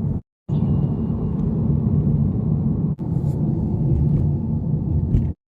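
Steady low road rumble of a car in motion, heard from inside the cabin. It drops out abruptly just after the start and again at the end, with a sudden break about three seconds in.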